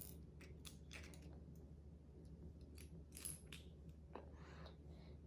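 Faint, scattered clicks and light rattles of plastic LEGO pieces being handled and pressed together, a few every second or so.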